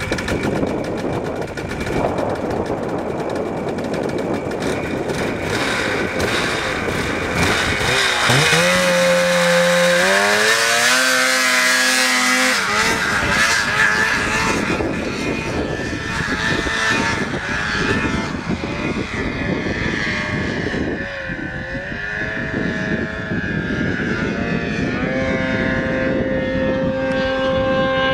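Snowmobile engine running at high revs under load. Its pitch climbs sharply about eight seconds in and holds high, then settles into a steady note near the end.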